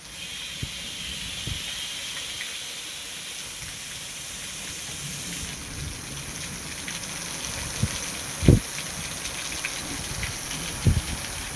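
Steady hiss of falling rain, its high edge dropping away about five and a half seconds in, with two short dull thumps near the end.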